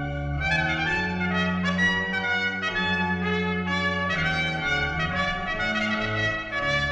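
Instrumental title theme music led by brass, a trumpet-like melody of held notes over a sustained bass line.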